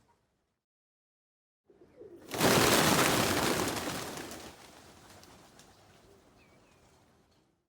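A flock of pigeons taking off together: a sudden loud burst of many flapping wings about two seconds in, fading away over the next few seconds as the birds climb off.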